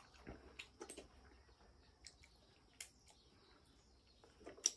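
Faint wet clicks and smacks of durian being eaten and handled, scattered through, with one sharp click near the end. A faint steady high-pitched tone sits behind.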